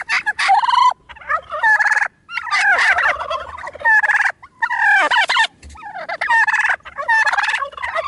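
Domestic turkey toms gobbling: a string of about six quick, wavering gobbles, each under a second long, with short gaps between them.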